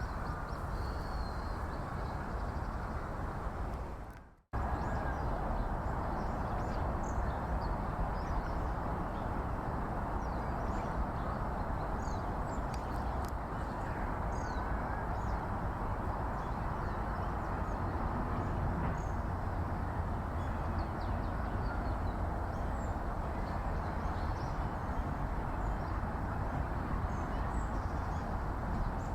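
Outdoor park ambience: a steady low background rumble of distant traffic, with faint, short high-pitched bird calls scattered throughout. About four seconds in, the sound fades out to silence for a moment and then returns abruptly.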